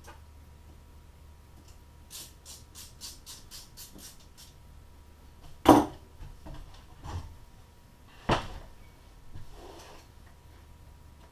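Hand-tool work while refitting a dirt bike's carburetor: a quick run of about ten clicks, then a sharp knock about halfway through and another a couple of seconds later, with lighter clatter between.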